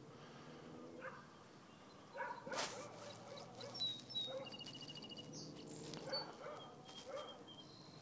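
Short animal calls repeated irregularly, with small birds chirping and a brief trill.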